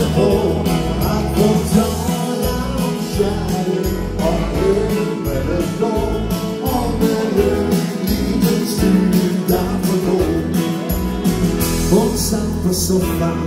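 Live Scandinavian dansband music with a steady dance beat and bass line, in an instrumental break between sung verses.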